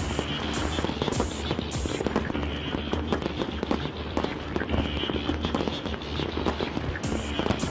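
Fireworks bursting in a dense run of bangs and crackles, over a music soundtrack with a steady bass and beat.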